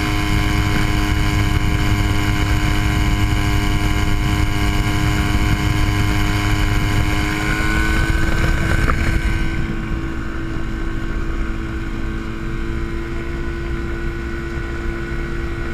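TL-32 Typhoon ultralight's engine and propeller running steadily while it taxis on grass, heard from inside the open cockpit. About ten seconds in the sound turns duller and a little quieter.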